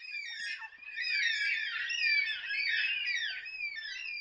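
A flock of birds calling: many short, squeaky calls that slide downward in pitch, overlapping in a dense chatter.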